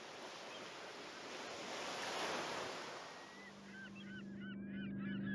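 Sea waves washing in, swelling and then fading away. A few seconds in, a low steady hum comes up, and a flock of birds starts calling with many short, curling cries.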